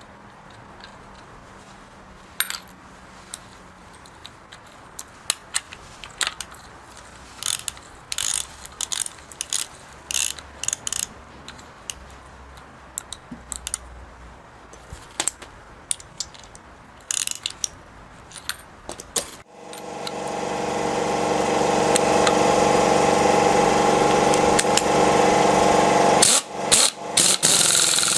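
Scattered sharp clicks and taps of metal parts and tools being handled, then about two-thirds of the way in a power tool spins up and runs with a loud, steady whir, cutting in and out a few times near the end.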